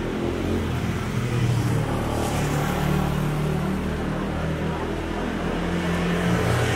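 Motor scooter engine running close by, a low hum that shifts in pitch, getting louder as it passes near the end.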